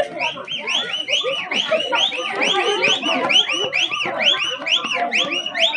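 A crowd of dancers shouting and calling. Over it, a shrill warbling tone rises and falls about three times a second.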